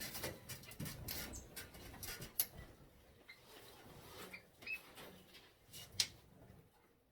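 Rustling and scattered light clicks and taps of decorations being handled and set down, with a couple of sharp knocks and a few brief chirps from the aviary birds.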